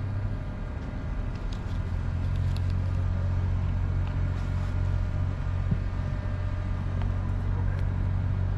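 A steady low mechanical hum with an even pitch, like an engine or machine running at a constant speed, growing a little louder about two seconds in.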